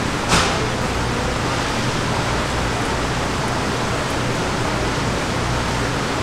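Steady, even rushing noise, with one short sharp sound about a third of a second in.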